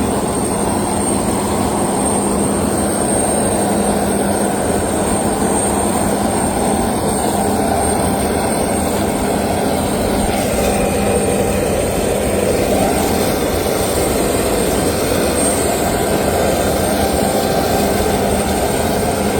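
Aircraft engines running steadily: a constant roar with a low hum and a thin, high, steady whine, unchanging throughout.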